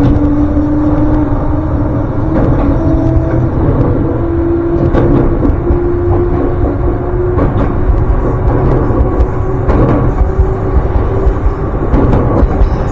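Electric commuter train running, its motor whine a single tone slowly rising in pitch as it gathers speed, with a knock about every two and a half seconds, typical of wheels passing rail joints.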